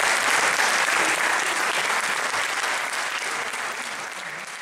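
Audience applauding, a dense steady clapping that gradually fades away toward the end.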